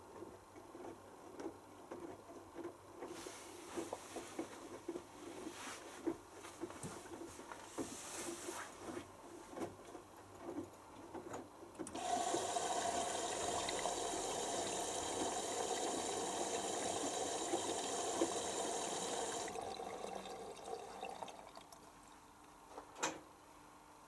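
Bosch Hydrosensor WFP3300 washing machine filling at the start of a wash cycle. First there is irregular splashing and trickling of water in the drum. About halfway through, water rushes in through the opened inlet valve with a loud steady hiss and hum, which stops after about eight seconds and is followed a moment later by a single click.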